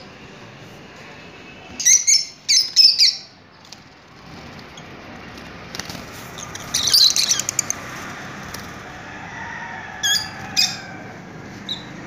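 Lovebirds chirping in short shrill clusters: a burst of calls about two seconds in, a longer one around seven seconds, and a couple more near ten seconds.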